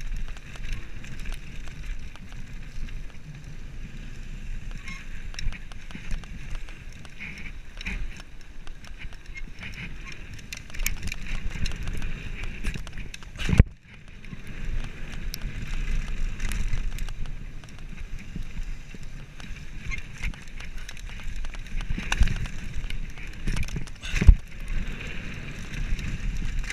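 Mountain bike descending a dirt and gravel trail: tyres rumbling over the ground with the bike rattling and clicking over bumps. Sharp loud knocks about halfway through and again near the end.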